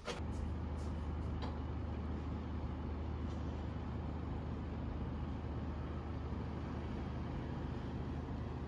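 A steady low mechanical hum with an even hiss over it, cutting in at once and holding unchanged, like a running fan or ventilation unit.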